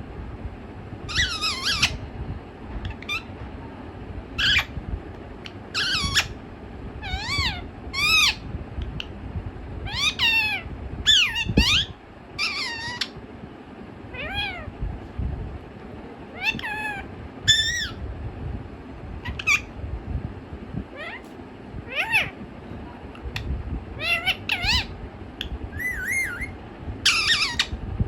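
Pet talking parakeet making a series of short, high, pitched calls and word-like utterances, about one every second or two, with a steady low background hum.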